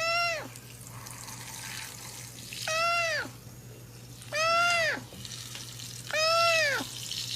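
A domestic cat meowing four times in a row at an even pace, about every second and a half to two seconds. Each meow is about half a second long and rises then falls in pitch.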